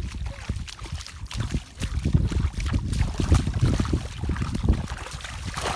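Wind buffeting the microphone in an uneven low rumble, with light splashing and sloshing of shallow water stirred by wading feet.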